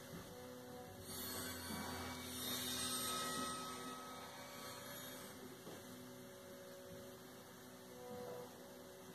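Steady low electrical hum, with a soft whooshing swell from about one second in to about four seconds as the disc's studio-logo intro plays through the television.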